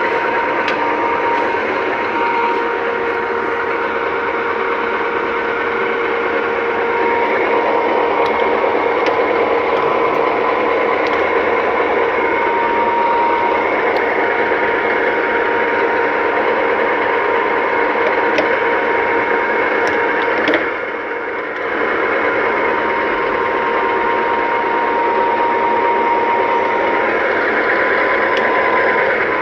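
Large metal lathe running under power: a steady mechanical noise with a constant gear whine. The level dips briefly about two-thirds of the way through.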